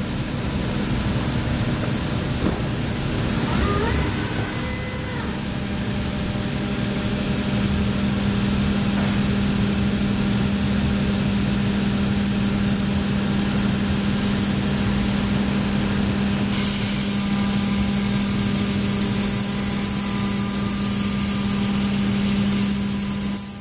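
5-axis CNC milling machine running: a steady hum with a constant high-pitched spindle whine over a wash of machine noise, the upper part of the noise dropping back about two-thirds of the way through.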